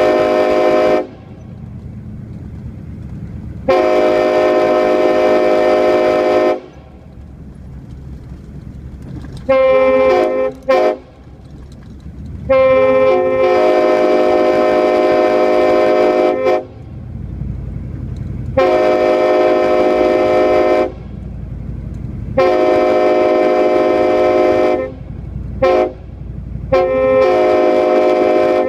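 Multi-chime locomotive air horn sounding a chord in a series of blasts: mostly long ones of about two to four seconds, with a couple of quick short toots around ten seconds in and another short one near the end. A low rumble continues between the blasts.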